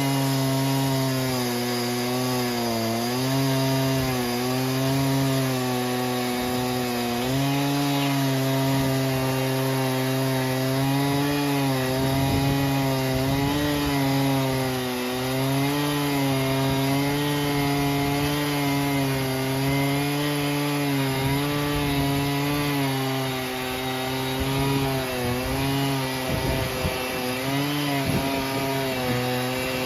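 Stihl MS880 two-stroke chainsaw running flat out on a Logosol F2 chainsaw mill, ripping lengthwise through a rock-hard yew log. The engine note stays steady but sags and recovers repeatedly as the chain bites.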